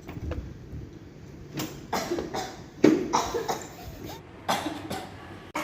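A person coughing: a string of short, harsh coughs, the loudest about three seconds in.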